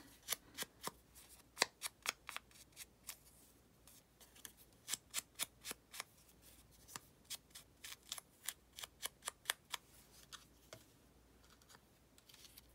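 Ink blending tool dabbed repeatedly against the edges of a small paper cut-out to ink them: runs of quick, light taps, several a second, with short pauses between runs.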